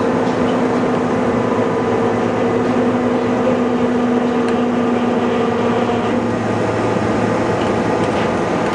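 Doosan NHP 5000 horizontal machining center running: a loud, steady mechanical hum with a pitched whine that drops out about six seconds in.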